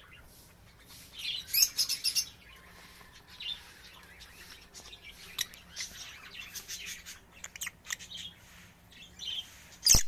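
Pet African lovebirds chirping in short, shrill bursts, with a dense flurry about a second and a half in and a loud burst at the very end.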